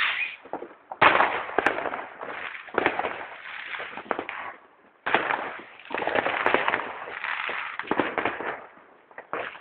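Fireworks crackling: two bursts of rapid pops and crackles, one starting suddenly about a second in and another about halfway through. Each thins out and dies away over three to four seconds.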